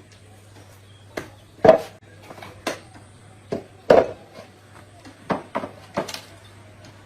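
Irregular knocks and clinks of hard objects being handled and set down, two of them much louder than the rest, over a steady low hum.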